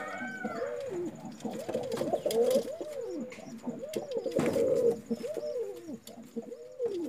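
Indian fantail pigeons cooing over and over. Each coo is a short call that rises and then falls, and they follow one another with hardly a break.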